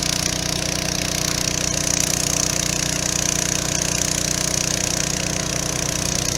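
Engine-driven water pump running steadily at an even speed while it pumps water into the AquaDam.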